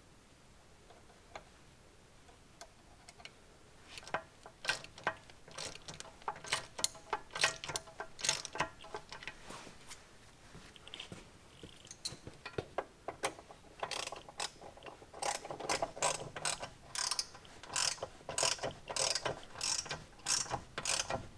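Hand ratchet wrench clicking in quick runs while tightening the nuts that draw a sterndrive against its gimbal housing. A few faint ticks come first, then the runs start about four seconds in, pause briefly midway, and continue steadily toward the end.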